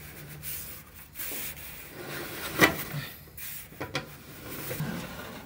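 Speed Queen clothes dryer drum turned by hand, its rim rubbing and scraping against the housing, with a sharp click about halfway through and a couple of lighter ones after. The drum rubbing is taken for the cause of the dryer's loud noise when it turns.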